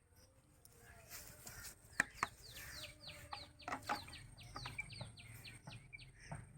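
A bird calling a rapid run of short, high notes, each falling in pitch, about four a second for around four seconds. Two sharp clicks come just as the calling starts.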